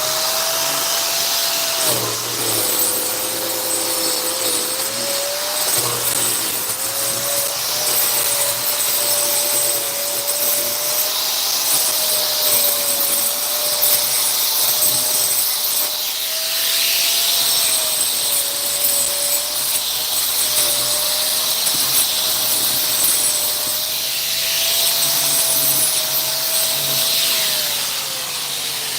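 A small electric motor, like that of a shop vacuum or power tool, running steadily for about half a minute with a loud hiss and a slightly wavering whine. It begins winding down near the end.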